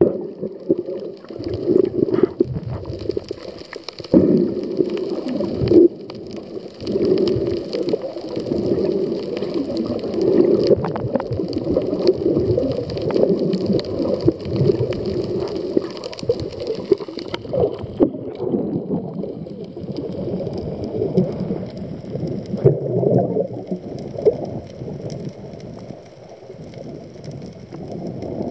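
Underwater sound picked up by a submerged camera: a dull, muffled, uneven churn of moving water, with scattered faint clicks and crackles.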